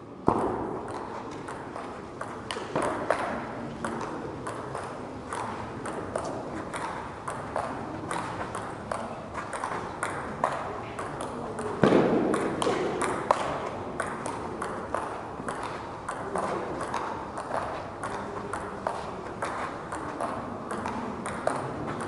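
Table tennis rallies: a celluloid ball clicking sharply back and forth off the players' rackets and the table, several hits a second. A low murmur of voices fills the hall, with a louder burst of voices about twelve seconds in.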